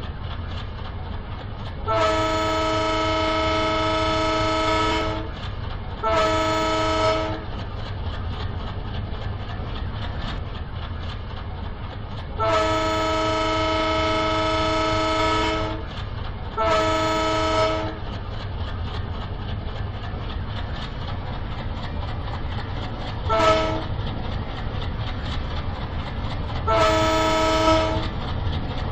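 Steam locomotive's chime whistle blowing a steady multi-note chord in six blasts: long, short, long, short, a very brief toot, then short. A steady low rumble of the approaching train runs underneath.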